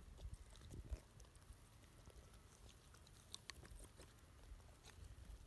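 Chickens pecking porridge off the grass: faint, scattered ticks and taps, a few sharper ones about three seconds in, over a low rumble.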